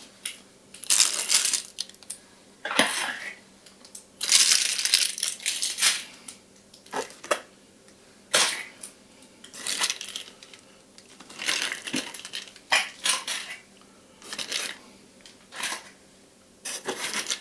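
Small hand tools and accessories being handled and put back into a box: irregular bursts of rustling plastic packaging with light metallic clinks.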